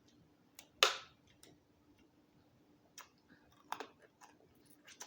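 Eating a steamed Dungeness crab: a few sharp cracks and clicks of shell and mouth sounds, the loudest about a second in, with more scattered through the rest.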